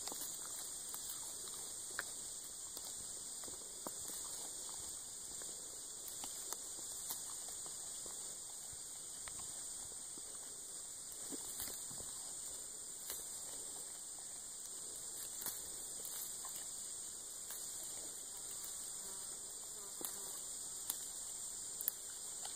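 Goat browsing on a barberry bush: scattered clicks and rustles of leaves and twigs being pulled and chewed, over a steady high-pitched insect chorus.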